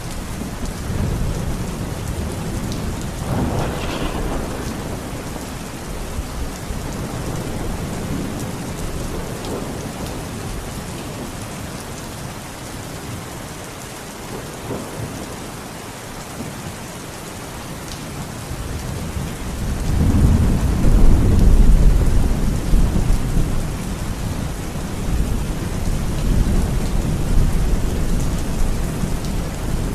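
Heavy rain falling steadily through a thunderstorm. Rolling thunder rumbles, with a sharper crack about four seconds in. About two-thirds of the way through, the loudest low rumble swells up and slowly dies away.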